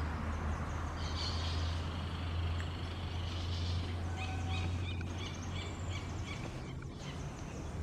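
A wren calling: a burst of high notes, then a rapid series of about eight short repeated notes, over a steady low hum.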